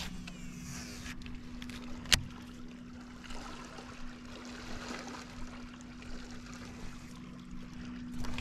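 Water lapping and trickling against a fishing boat's hull over a steady low hum, with one sharp click about two seconds in.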